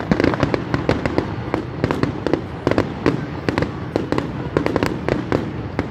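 Aerial fireworks bursting: sharp bangs in quick, irregular succession, several a second.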